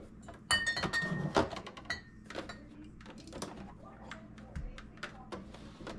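Jars and plastic containers knocking and clinking as they are set on refrigerator shelves and organizers, with a louder clatter and a brief ringing clink about half a second to two seconds in, then scattered lighter knocks.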